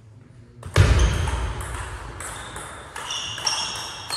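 Table tennis rally: the ball clicks off the table and rubber bats in quick alternation, about two sharp strikes a second, several with a short high ping. A heavy low thud about a second in, as play starts.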